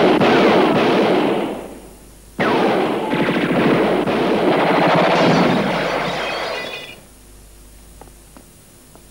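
Two long bursts of rapid automatic gunfire. The first trails off about two seconds in; the second starts abruptly a moment later and runs for about four and a half seconds before stopping.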